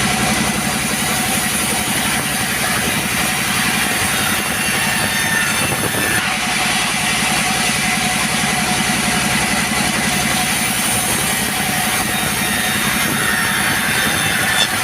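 Two-stroke chainsaw running steadily at high revs.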